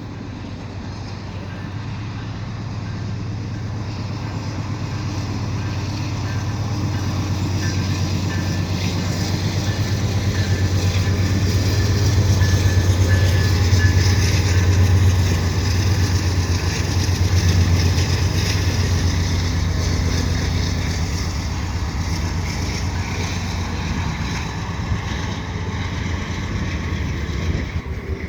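A pair of GE AC4400CW diesel-electric locomotives hauling a double-stack freight train past, their deep engine drone growing louder as they approach and peaking about halfway through. The drone stays loud as the train keeps rolling by.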